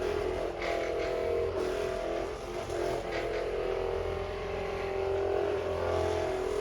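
Handheld percussion massager running against leg muscles: a steady motor buzz whose pitch wavers slightly as it is pressed into the muscle.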